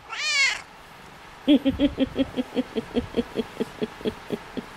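A cat gives one short high-pitched meow. About a second and a half in, a soft rhythmic pulsing sound starts, about six pulses a second, and slowly fades away.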